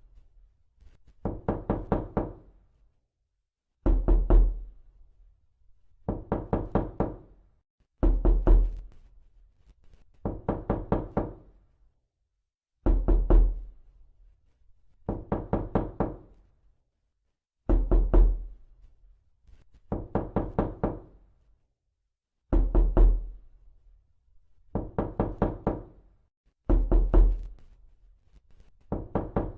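Repeated knocking in quick bursts of about five or six knocks, a burst roughly every second with short silences between. The bursts alternate, and every other one has a heavier, deeper thud.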